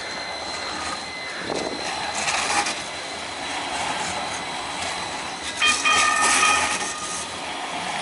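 Hudson-Bergen Light Rail trams running on snow-covered street track, a steady rumble and hiss of wheels and motors. About six seconds in, a loud high-pitched tone sounds for about a second as a tram takes a curve.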